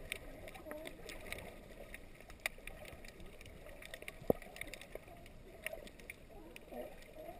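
Underwater ambience picked up by a submerged camera: a faint, steady muffled rush of water with scattered small clicks and crackles, and one sharper click a little past four seconds in.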